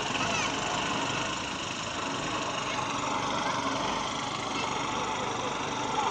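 Off-road jeep's engine running as the jeep wades through a shallow, muddy river, under a steady hiss of noise.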